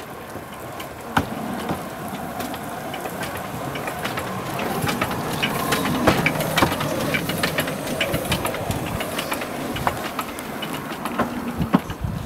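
Small narrow-gauge steam locomotive passing close alongside, with a busy run of clanks, knocks and wheel clicks over a steady noise. It is loudest about halfway through, as the engine goes by, and then fades.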